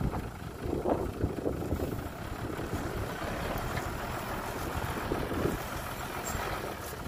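Heavy diesel engine of earth-moving machinery running steadily, with a couple of short knocks about a second in.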